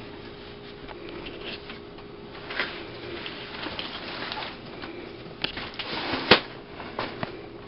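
Inglesina Avio stroller frame being folded shut and unfolded again by hand: scattered plastic-and-metal clicks, knocks and fabric rustle as the frame and latches move. One sharp click, a little over six seconds in, is the loudest.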